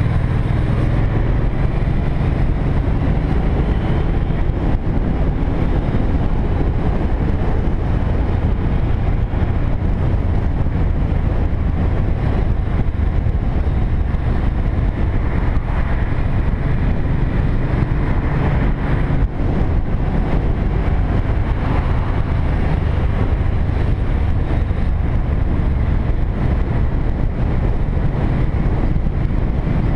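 Motorcycle engine running steadily at cruising speed, with wind rushing over the microphone.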